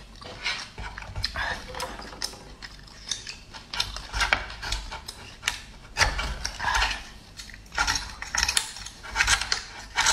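Metal knife and fork prying open a steamed oyster's shell: irregular sharp clicks, scrapes and clacks of metal on shell and shell on the plate.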